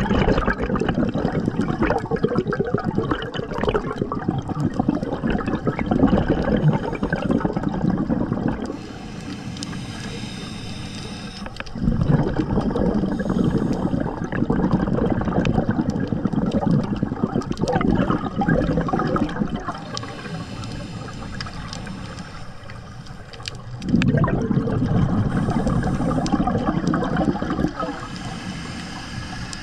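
Scuba diver breathing through a regulator underwater: three long rushes of exhaled bubbles, each lasting several seconds, with quieter inhalations between them that carry a faint high hiss.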